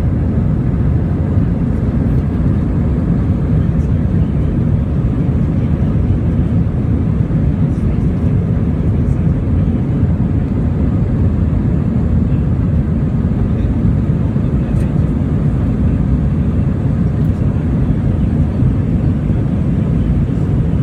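Steady cabin noise of an Airbus A320-family jetliner in flight: the deep, even rumble of its engines and the airflow, heard from inside the cabin.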